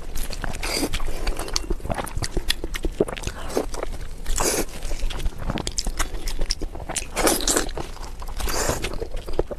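Close-miked mouth sounds of a person biting and chewing braised meat, with many small clicks and smacks. There are a few louder bursts of chewing in the second half.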